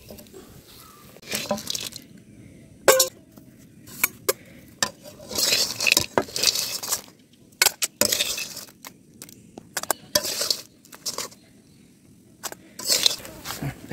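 Metal spatula scraping and clinking against a steel wok as cooked crab pieces are stirred and scooped, in short irregular strokes with pauses between them.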